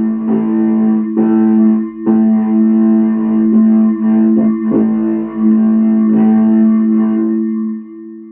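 Music of sustained, ringing instrumental notes holding two steady pitches, re-struck about once a second and dying away near the end.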